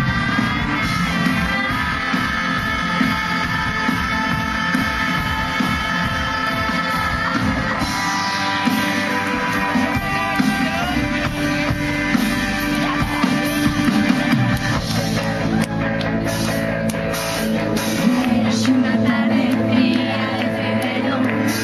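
Live pop-rock band playing with a woman singing lead, her voice holding long notes over guitar and drums; partway through her singing drops back and the band plays on.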